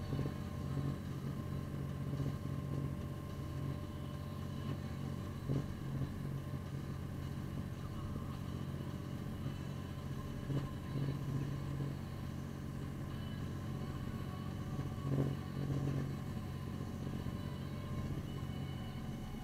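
Engine of a snow-plowing machine running steadily, heard from inside its cab, with a few brief knocks.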